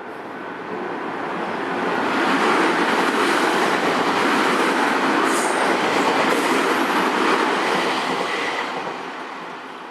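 Nankai Main Line electric train passing over a level crossing: the rush of the train swells over about two seconds, holds steady and loud, then fades away near the end.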